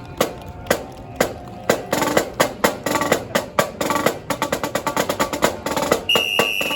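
Marching band drums playing a cadence: single strong beats about twice a second at first, then building into a busier drum pattern. A long high steady tone starts near the end.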